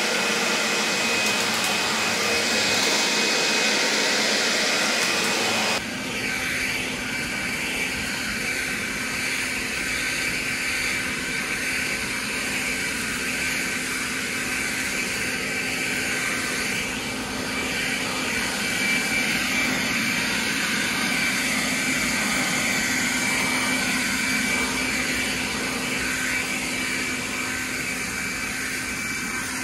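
Greenworks 24V cordless axial leaf blower running steadily, a rush of air with a high whine. The sound changes abruptly about six seconds in, then holds steady.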